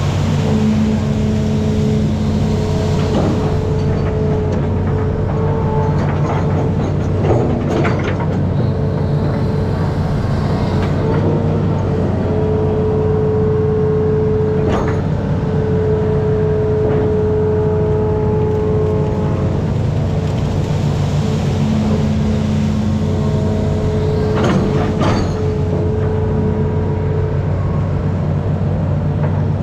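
Hitachi amphibious excavator running steadily under working load as the boom and bucket move, with whining tones that come and go as the arm works and a few sharp knocks, about three in all.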